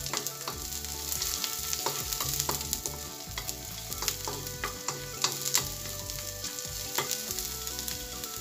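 Diced onions sizzling in hot oil in a metal wok, sautéing toward golden brown, while a wooden spatula stirs them with frequent scrapes and taps on the pan; a few sharper taps come a little past halfway.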